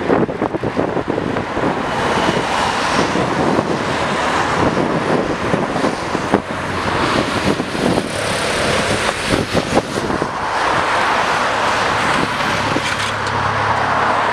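Cars and a motorcycle of a cycling race convoy driving past on a road: a steady wash of engine and tyre noise. A low engine hum comes up near the end.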